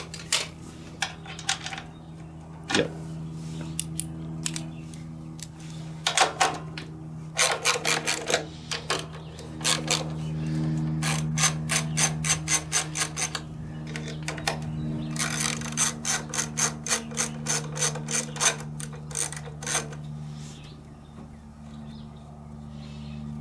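Socket ratchet clicking in several quick runs as it is swung back and forth, loosening the 10 mm carburetor mounting nuts on a Kohler CV15S engine, over a steady low hum.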